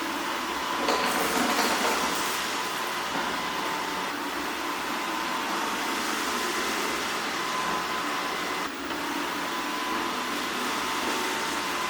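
Yeedi K600 robot vacuum running on its standard suction setting over a hard floor: a steady rushing noise with a thin constant whine, a little louder between about one and two seconds in.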